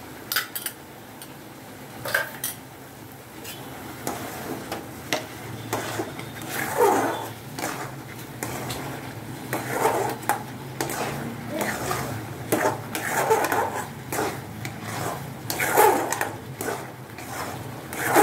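Steel spoon and ladle stirring and scraping thick rava kesari around a steel kadai, with metal clinks against the pan. A few sharp clinks come in the first seconds, then repeated scraping strokes. The stirring keeps the thickened kesari from sticking to the bottom.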